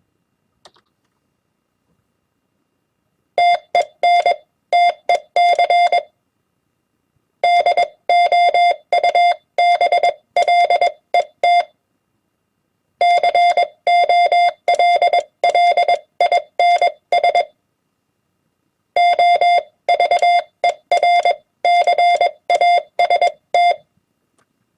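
Morse code (CW) tone keyed at 20 words per minute: four words or abbreviations in dots and dashes on one steady mid-pitched note, each separated by a pause of about a second and a half.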